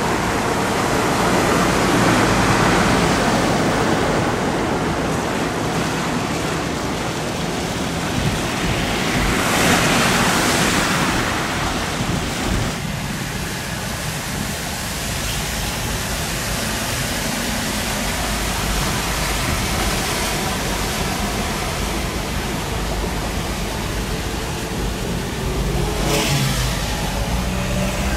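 Cars driving through a flooded street: tyres pushing and splashing through standing water over a low engine hum. The rush of water swells about two seconds in, around ten seconds and again near the end.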